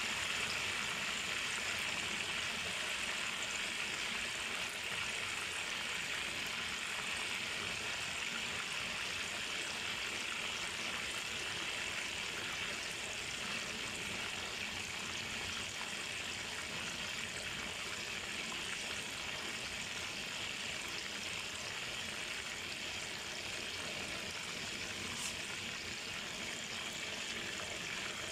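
Milkfish and Spanish mackerel pieces deep-frying in a pan of hot oil: a steady, even sizzle.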